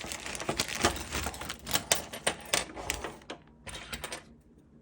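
Rapid clicking and rattling of small hard parts being handled, most likely the new wire connectors and their fittings. The clatter is busiest for about three seconds, then comes in a few short bursts before it stops near the end.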